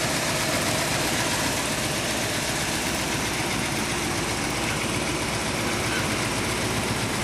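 Holden VN Commodore Clubsport's 5.0-litre V8 idling steadily.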